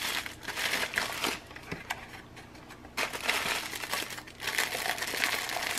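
A clear plastic bag crinkling as it is handled and pushed into a cardboard sleeve. The crinkling comes in two bouts, with a quieter stretch in the middle.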